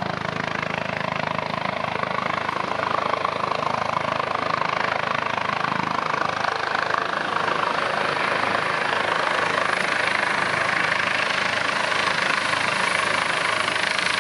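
Airbus H145 helicopter flying low on its approach to land: rotor and turbine noise running steadily and growing slightly louder, with a faint regular rotor beat underneath.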